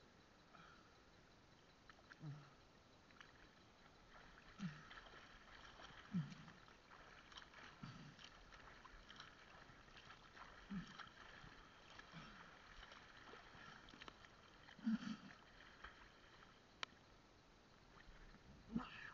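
Faint, muffled sloshes of sea water against a waterproof camera housing at the surface, about one every one and a half to two seconds, with light crackling of water and bubbles.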